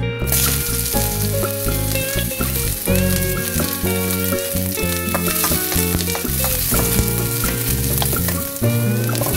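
Chopped onion and garlic sizzling in hot oil in a stainless steel wok; the sizzle starts suddenly as they hit the oil and holds steady while they are stirred with a wooden spatula.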